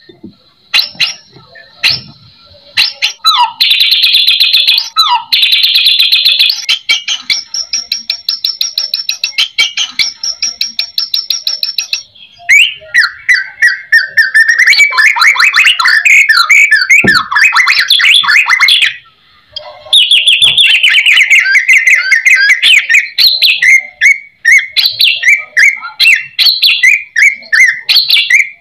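White-rumped shama (murai batu) singing a long, varied song packed with different phrases. It runs from fast rattling series of repeated notes into sliding whistled phrases and falling runs, with two short breaks.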